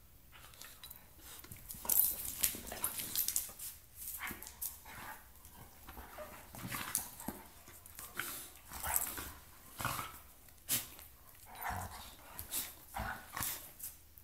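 A Doberman and a brindle dog play-fighting: a run of short, irregular dog noises and scuffles, with the loudest cluster about two seconds in.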